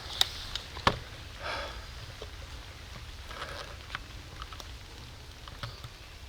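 Water drops dripping in wet woods after rain: a few sharp taps, two loud ones in the first second, then lighter ticks, over a soft steady hiss.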